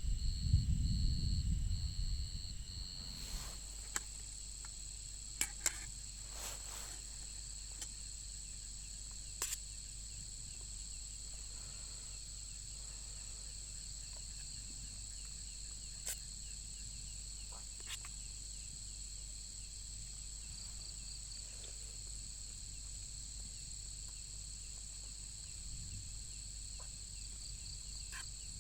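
Night insects trilling steadily in several high pitches, with a few sharp clicks scattered through. A low rumble fades out in the first three seconds.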